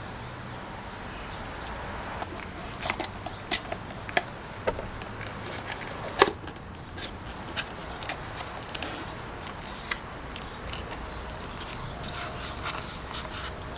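Scattered small clicks and rustles of hands handling taped electrical wiring and a plastic connector at a lawn mower's battery pack, over a steady faint background noise; the sharpest click comes about six seconds in.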